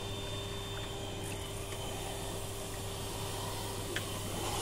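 A steady mechanical hum with a constant low drone and a faint high whine, and a single faint click about four seconds in.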